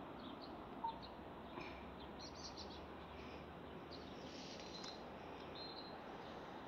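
Small birds chirping faintly, with short high chirps scattered throughout over a steady background hiss, and one brief louder blip about a second in.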